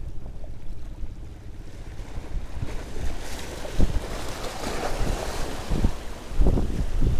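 Small sea waves surging and breaking over rocks, swelling about halfway through, with wind rumbling on the microphone and a few low thumps of gusts or water against the rocks.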